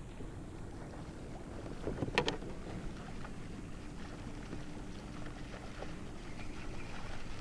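Steady wind and water noise around a kayak on open water, with one brief sharp click about two seconds in and a faint steady hum for a few seconds in the middle.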